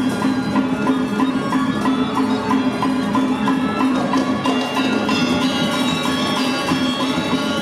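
Balinese gamelan playing: bronze metallophones and gongs ringing in dense interlocking tones over a steady pulse of short ticks.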